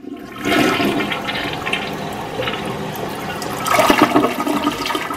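Toilet flushing: water rushing and swirling down the bowl, starting about half a second in and at its loudest about four seconds in.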